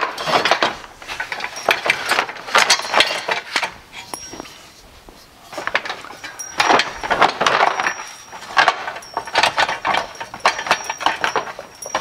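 Rigid plastic shroud being pried and worked free of a pressure washer frame: bursts of clicking, rattling and scraping as its plastic catches pop loose and a metal pry tool knocks against it. There is a quieter pause a few seconds in.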